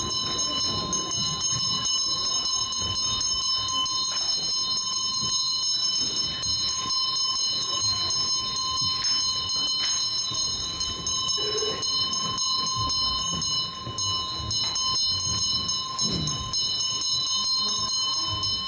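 Continuous metallic ringing, a bell rung rapidly without pause: several steady high tones held throughout over a fast, even rattle.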